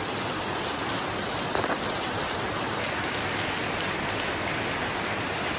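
Heavy rain pouring steadily, an even hiss with a few louder drops about a second and a half in.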